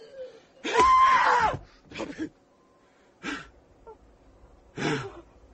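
Voice-acted struggle in an audio drama: a strangled cry with a wavering pitch about a second in, followed by short gasps and wheezing breaths.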